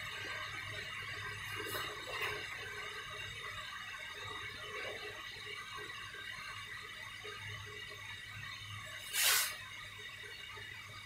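Pages of a wallpaper sample book being turned by hand: soft paper rustling over a steady background hum, with one louder swish of a page about nine seconds in.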